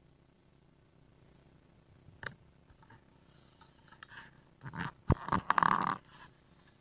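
Close rustling and bumping right at the microphone, loudest in a burst between about four and a half and six seconds in, with a sharp click a little over two seconds in. Faint, short, downward-sliding bird chirps sound now and then in the background.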